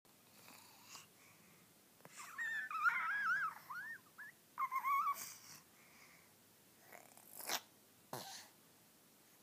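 A dog making a string of high, wavering whines that bend up and down in pitch, then two short, sharp sneeze-like snorts near the end.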